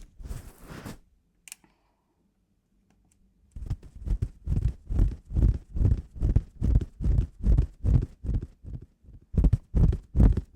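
Close-miked chewing, a loud even rhythm of about three chews a second that begins about a third of the way in, after a short pause.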